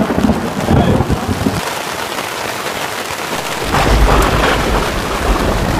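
Heavy rain falling on a plastic tarp overhead, with a low rumble of thunder that swells about two-thirds of the way in.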